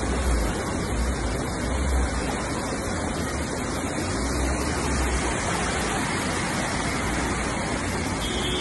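Torrential rain pouring down and floodwater rushing through a street, a steady heavy hiss of water. Low rumbling on the microphone comes and goes during the first five seconds.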